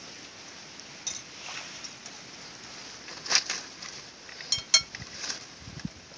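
A few sharp clinks and knocks of a ceramic plate and a wooden stick being handled, the loudest a short ringing chink of the plate about three quarters of the way through, followed by a dull thump near the end.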